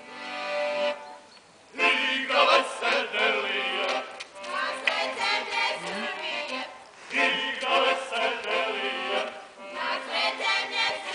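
Traditional folk dance music: held instrumental notes for the first two seconds, then a group of voices comes in loudly, singing phrases about two and a half seconds long with short breaks between them.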